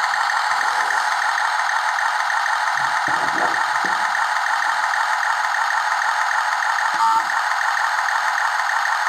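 Miniature 1/72 RC Tiger tank's built-in sound module playing a steady tank-engine idle sound through its tiny speaker, thin and without any low rumble. A short click about seven seconds in.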